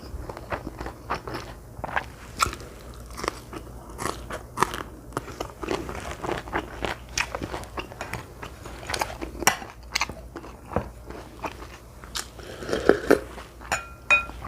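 A person chewing and eating close to the microphone: irregular wet mouth clicks and small crunches, with a short ringing clink near the end.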